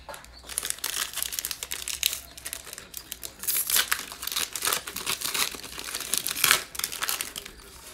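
Foil football trading-card pack wrapper crinkling and tearing as it is ripped open by hand. The crackle starts about half a second in and comes in uneven spurts, loudest near the middle and again toward the end.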